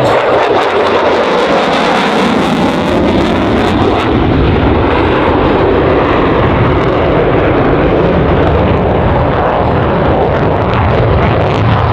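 F-22 Raptor's twin Pratt & Whitney F119 afterburning turbofans, a loud steady rush of jet noise as the fighter flies its display maneuvers.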